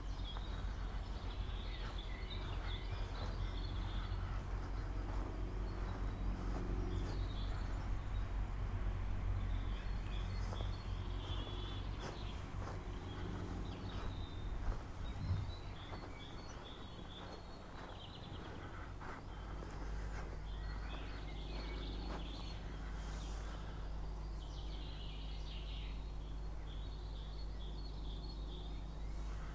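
Outdoor ambience: a steady low rumble with scattered small clicks and faint high chirps, easing slightly about halfway through.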